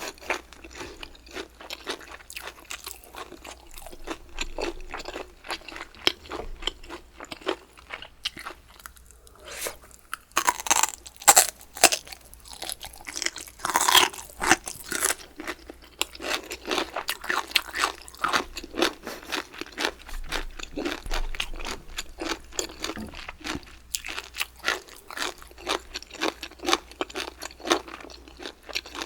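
Close-miked eating: a person chewing crunchy food in quick, dense crunches, louder for a few seconds around the middle.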